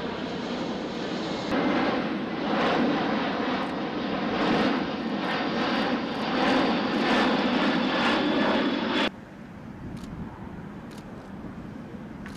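Boeing C-17 Globemaster III's four turbofan engines droning steadily as the jet flies overhead. About nine seconds in, the sound cuts off suddenly and a much quieter steady noise continues.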